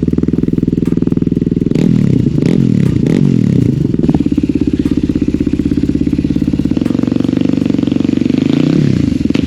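Yamaha WR250R's single-cylinder four-stroke engine running through a GPR aftermarket exhaust with the baffles removed, loud. It runs steadily at first, revs rise and fall several times about two seconds in, then it holds a steady pull, with a brief drop and climb in revs near the end.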